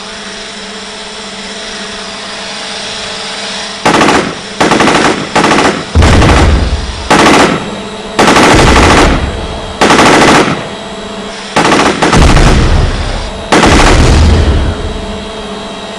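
Submachine gun mounted on a quadrotor drone firing about ten bursts of automatic fire, beginning about four seconds in. Before the shooting, the drone's steady multi-tone rotor hum.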